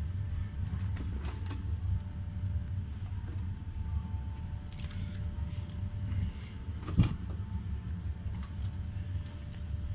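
Laundry being loaded into a washing machine or tumble dryer drum by hand: clothes rustling, with scattered clicks and knocks and one sharp knock about seven seconds in, over a steady low hum.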